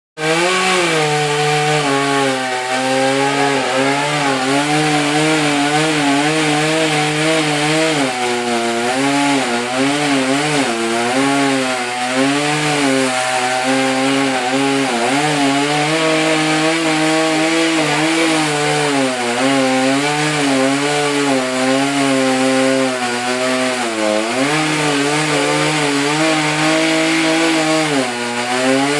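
Chainsaw running under load as it cuts into a dead tree, its engine pitch wavering up and down as the chain bites and frees, with deeper dips about three quarters of the way through and near the end.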